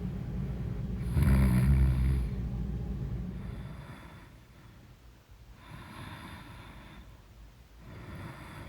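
A woman snoring in her sleep: a loud, low snore about a second in that fades over the next couple of seconds, then two softer, breathy exhales in the second half.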